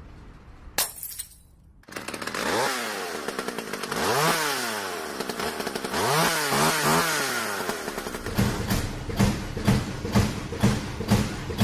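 A small engine revving up and down several times, then running with a rough, pulsing beat.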